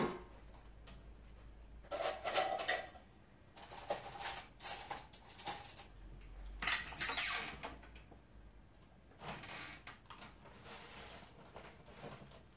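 A sharp knock as a glass jam jar is set down on the table, then several bursts of clattering and rustling as jars and containers are moved about out of sight.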